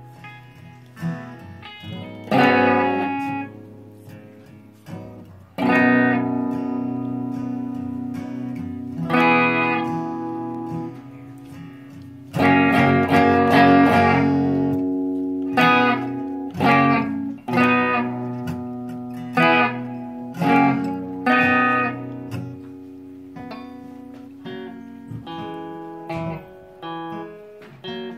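Acoustic guitar and electric guitar playing chords of a pop song together, with no singing. In the first half the chords are struck and left to ring for a few seconds; in the second half shorter chords come about once a second.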